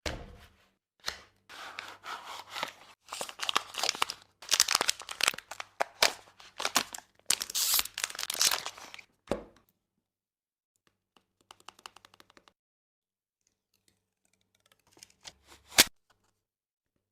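Disposable-vape packaging being torn open and crinkled by hand for several seconds, followed by a run of faint clicks and then one sharp click.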